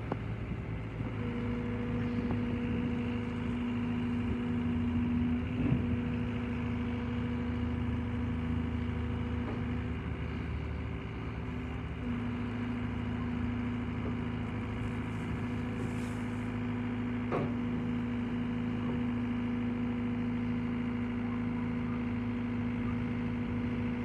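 Komatsu WB140 backhoe loader's diesel engine running at a steady speed while the backhoe arm works, with a steady hum that drops out briefly a few times. A couple of sharp clunks stand out, about six seconds in and again past the middle.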